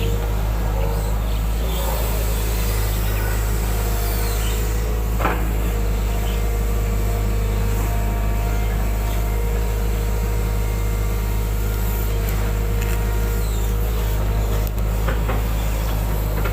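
Hitachi 120-class excavator's diesel engine running steadily while it digs a drain, with a single knock about five seconds in.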